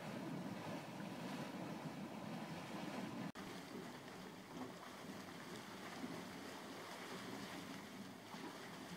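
Steady churning, rumbling water of Dragon's Mouth Spring, a hot spring where steam and gas surge through the water against the walls of its cave, with wind on the microphone. The sound breaks off abruptly at an edit about three seconds in and carries on after it.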